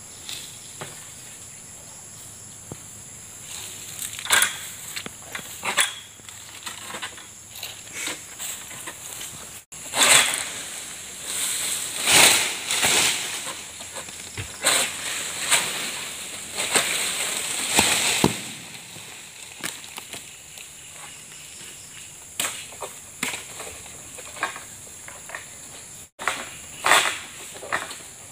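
An SBL M222A oil palm sickle on a long pole hacks and saws at a palm crown in repeated sharp strokes. From about 10 to 18 s there is a longer stretch of scraping and rustling of palm fronds. A steady high insect drone runs behind it.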